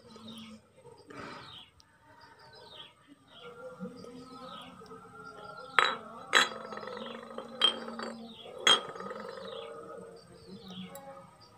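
Metal parts clinking together four times, sharp and brief, a little past halfway. Small birds chirp in short falling calls throughout.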